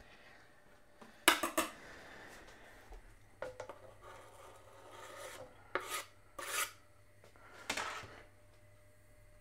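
Kitchen knife blade scraping finely chopped onion off a plastic chopping board into a steel pot, in several short rasping scrapes, the loudest about a second in.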